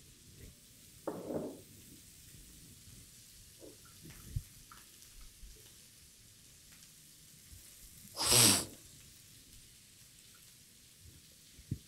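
Faint, steady sizzle of lobsters frying in an oiled pan, with a few small ticks. A single short, loud burst of noise comes about eight seconds in.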